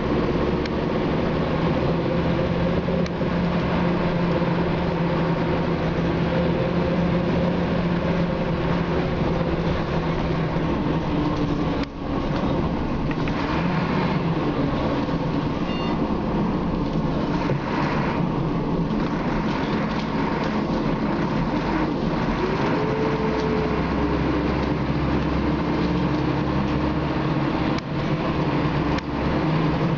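Scania K93CRB single-decker bus heard from inside the passenger saloon while under way: its rear-mounted diesel engine runs with road and body rattle noise, and the engine note changes about a third of the way in.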